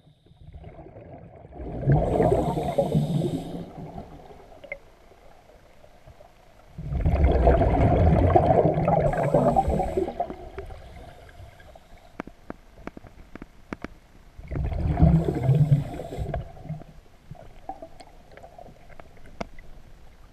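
A scuba diver's exhaled breath bubbling out of the regulator, heard underwater: three loud bursts of bubbling several seconds apart, the middle one the longest. Faint sharp clicks come between them.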